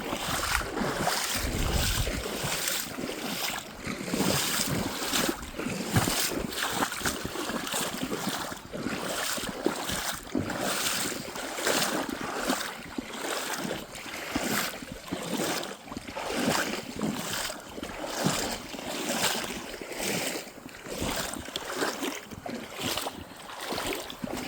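Creek water sloshing and splashing around legs in waders, in a steady run of regular swishes about one to two a second, as of someone wading and working in the water.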